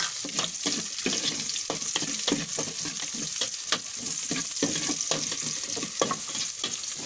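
Garlic and onion sizzling in hot oil in a metal pot, with a metal spatula repeatedly scraping and knocking against the pot as they are stirred.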